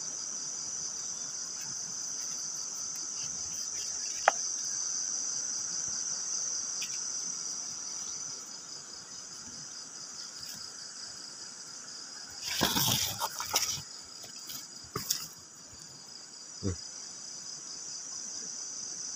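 Night insects chirring in a steady, high chorus, with a burst of rustling and knocking about two-thirds of the way through and a couple of smaller knocks after it.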